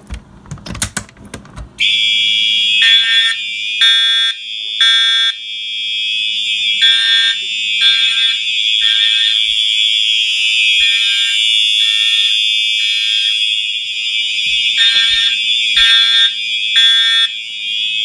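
A fire alarm pull station is pulled with a brief clatter. About two seconds in, the alarm system sounds: a loud, steady, high-pitched tone, with horns pulsing in groups of three (the temporal-three evacuation pattern). Among the devices sounding is an Edwards Enhanced Integrity horn, which has a moaning and groaning quality.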